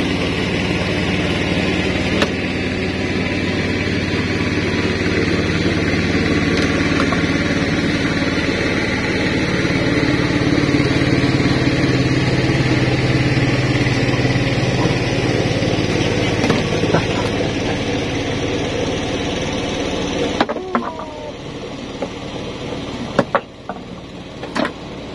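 A small boat's engine running steadily, which cuts out about 20 seconds in; after it stops, a few sharp clicks.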